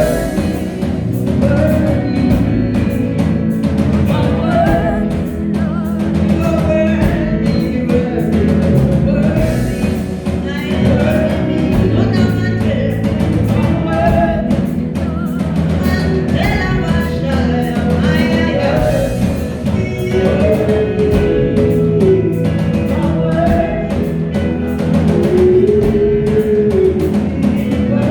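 Live worship music: voices singing a melody over a band with drums, bass and guitar, played at a steady beat.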